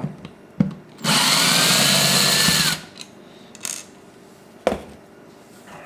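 Power drill/driver with a T10 bit running for nearly two seconds as it backs a screw out of a battery pack's plastic case, its pitch rising slightly, then falling as it stops. A sharp click comes before it and another about a second and a half after it.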